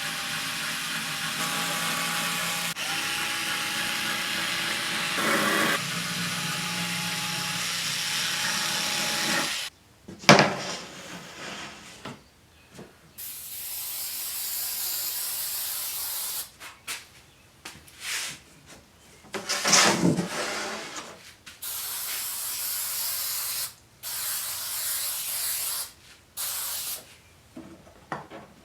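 Power tool running steadily for about nine and a half seconds, then stopping. It is followed by a few sharp knocks and several short bursts of high hissing.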